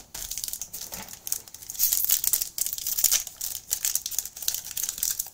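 Trading card pack wrapper from a 2022 Panini Prestige NFL box crinkling and tearing as it is opened, a quick run of crackles that gets busier after about two seconds.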